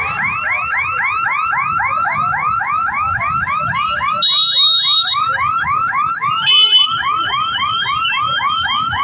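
Electronic warning siren of a railway level-crossing barrier, a fast rising whoop repeated about four times a second, sounding as the boom lifts. Motorcycle engines run beneath it, and there are two short high beeps near the middle.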